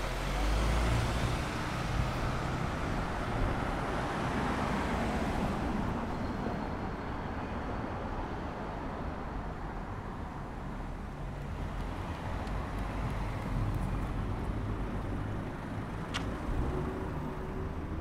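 Mercedes-Benz Sprinter delivery van driving past close by, its engine and tyre noise fading over the first five or six seconds. After that, a steady low hum of street traffic remains, with a single sharp tick near the end.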